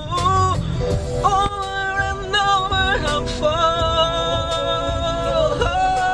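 Pop ballad music: a held, wavering sung melody over a steady beat.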